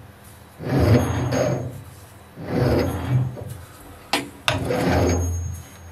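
Lathe boring bar cutting inside a steel housing: three rasping bursts about a second long each, with two sharp clicks shortly after four seconds in.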